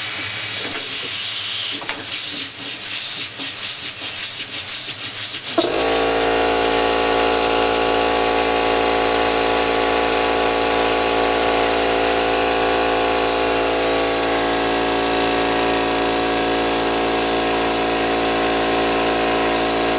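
Homemade double-acting steam engine running on compressed air: a steady hiss of air with quick, uneven chuffs from the valve exhaust as the flywheel turns. About six seconds in, a loud steady motor hum with a high whine starts suddenly and keeps on.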